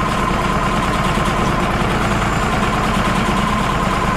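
Wood-Mizer LT35 HD portable band sawmill's engine running steadily, a low hum with a steady whine over it.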